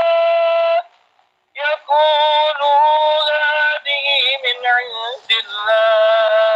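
A male reciter chanting the Quran in melodic tilawah style. A held note breaks off less than a second in, with a short pause for breath. It resumes with ornamented, wavering runs and ends on a long, steady note.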